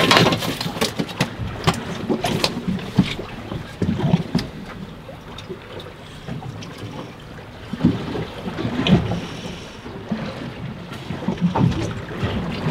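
Choppy sea slapping against a small fishing boat's hull, with wind buffeting the microphone. A sharp knock comes at the start, followed by a few lighter clicks over the next few seconds.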